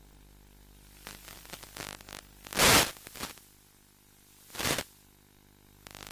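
Bursts of hissing static over a faint steady hum on the audio channel of an analog FPV video link, the mark of reception breaking up. Scattered crackles about a second in, the loudest burst in the middle, and another short burst near the end.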